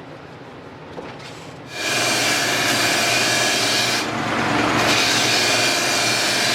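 Buffing wheel running with a metal snare hoop pressed against it, starting about two seconds in and carrying on steadily, the hiss easing briefly around the middle.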